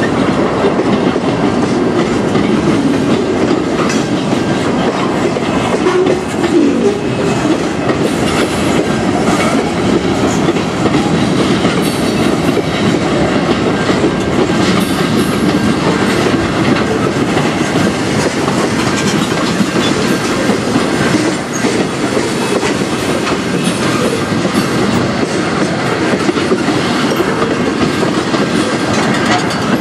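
Freight train's tank cars and covered hopper cars rolling past close by: a steady rumble of steel wheels on the rails, with wheels clicking over rail joints.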